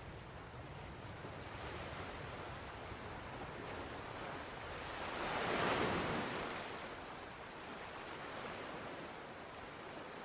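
Sea waves washing on a beach, a steady rush of surf with one wave swelling and breaking about halfway through, then receding.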